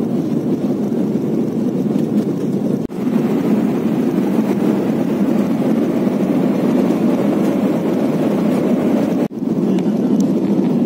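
Steady cabin noise of an Embraer E195 airliner in flight, the hum of its GE CF34-10E turbofans and the rush of air past the fuselage heard inside the cabin. It breaks off twice for a split second, about three seconds in and near the end, where the footage cuts.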